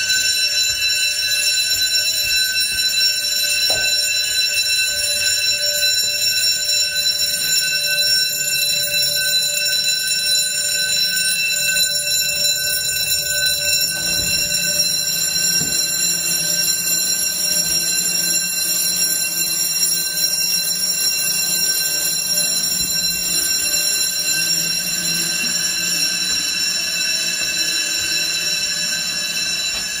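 Building fire alarm bells ringing without a break during a fire alarm test: a loud, steady, high ring with several overtones held together.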